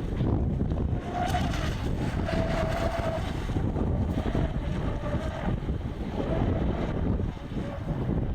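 Electric radio-controlled boat's motor whine coming and going several times over heavy wind noise on the microphone. The boat sounds like it is on LiPo low-voltage cutoff, its battery running down.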